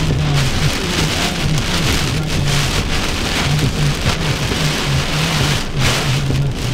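Heavy rain coming down steadily, with a low broken hum underneath.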